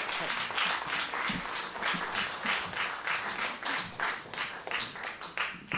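Audience applauding, the claps growing sparser toward the end.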